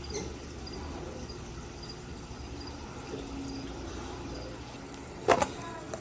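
Faint cricket chirping, short high chirps repeating evenly, with a brief loud rustle or knock about five seconds in.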